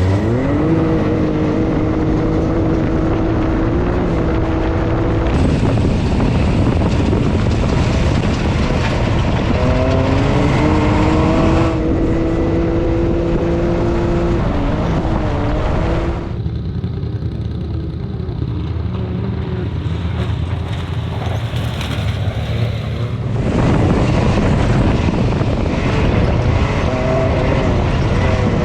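A loud engine running under load, its pitch climbing in long steady pulls near the start and again about ten seconds in. The sound changes abruptly several times, with a quieter stretch past the middle.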